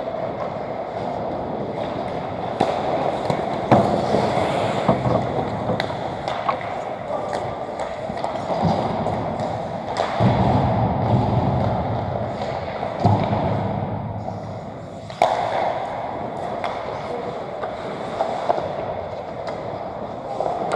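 Ice hockey play on an indoor rink: skate blades scraping the ice, with many sharp clacks of sticks and puck. The loudest knocks come about four seconds in and again about fifteen seconds in.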